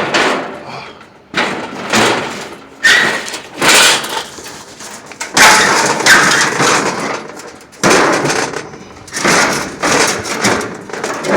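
A grill's sheet-metal body banging and clattering as it is wrenched and forced by hand. It makes a run of loud crashes roughly one a second, each ringing briefly.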